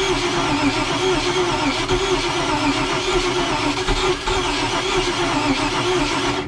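Boat's carbureted inboard engine cranking on its starter in a start attempt, turning over steadily for several seconds, then cutting off abruptly at the end. It is being fed fuel poured into the carburetor, and a speaker wonders whether there is too much fuel; the tank later turns out to be empty.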